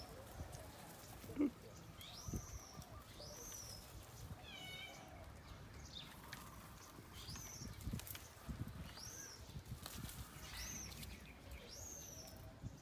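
Faint, high-pitched squeaky calls that rise and fall, repeating every second or so, with a few knocks and rustles of tree branches.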